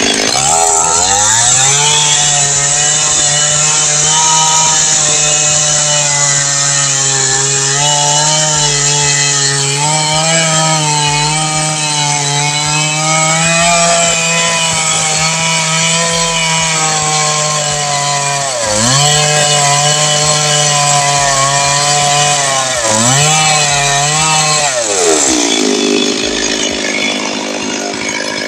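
Two-stroke petrol chainsaw sawing into wood: the engine revs up about a second in and runs at full throttle, its pitch wavering under the cut, dips sharply twice, then drops back toward idle near the end.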